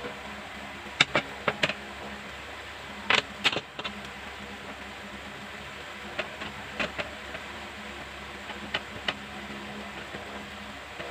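Handling noise: scattered sharp clicks and taps, several in quick pairs, with the loudest cluster about three seconds in, over a steady low hum.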